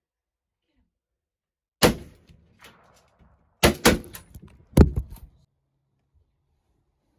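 Four sharp knocks with short tails, two of them close together, and small clicks and rustles between them, like something being handled or bumped inside a hunting blind.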